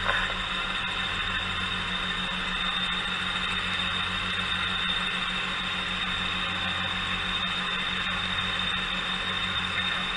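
Light helicopter in flight, heard from inside the cabin: a steady drone of engine and rotor with a rapid, even beat underneath and a constant high whine on top.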